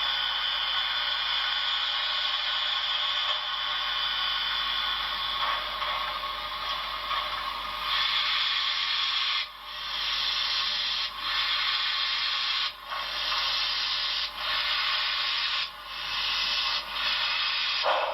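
Steam hiss from an HO scale Broadway Limited Imports NYC Vanderbilt Hudson's Paragon 4 sound system, played through the model's small speaker. The hiss is steady at first, then breaks into stretches cut by brief drops about every one to two seconds in the second half.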